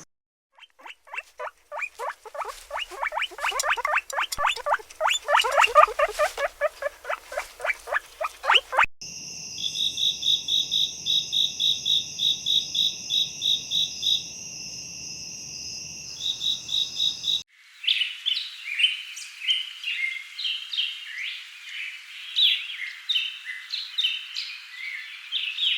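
Three abruptly cut clips of animal calls: a fast, pulsing croak-like call for about nine seconds, then an even, high-pitched chirping pulse about three times a second, then a jumble of high chirps.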